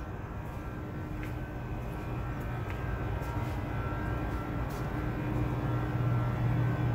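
Steady drone of industrial air handling and cooling machinery, a low hum with a few faint higher whines, growing slightly louder toward the end, with a few faint clicks.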